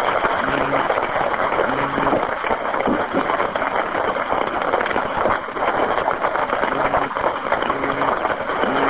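Loud, steady hiss and crackle on an open telephone line, with a low buzzing tone that comes and goes in short pulses and drops out for a few seconds midway.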